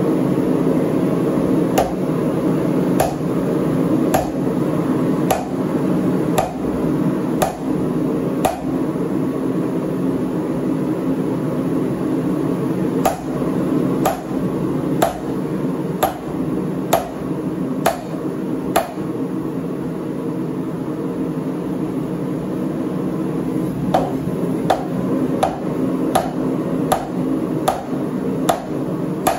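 Hand hammer striking hot steel on an anvil while forging a lug wrench, evenly spaced blows about one a second in three runs of six or seven strikes, the last run a little quicker. A steady low roar runs underneath.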